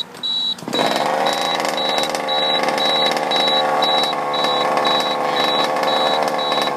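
Killer Bee ignition kill switch on an HPI Baja RC car beeping with a short high tone about twice a second. A steady mechanical drone of even pitch starts about a second in and fades out near the end.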